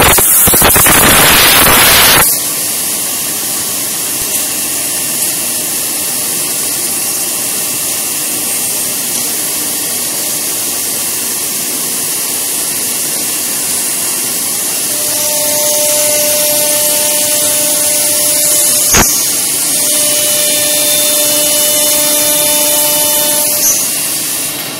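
CNC wood router with air-cooled 4.5 kW spindles working a wooden door panel: a loud burst of noise for about the first two seconds, then a steady hissing run. Whining tones join about two-thirds of the way in, with a single sharp click a little later.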